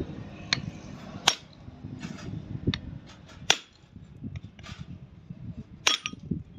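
Hammer blows on a cold chisel held against the splined steel end of a Massey Ferguson tractor pinion shaft: about five sharp metallic strikes at uneven intervals.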